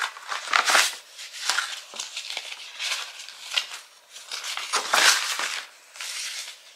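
Paper packaging rustling and crinkling in irregular bursts as a card envelope is opened and a folded paper insert is drawn out of it.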